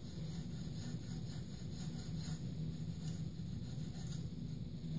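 Pencil scratching along the end of a wooden board as a gauge line is marked, in faint strokes over a steady low hum.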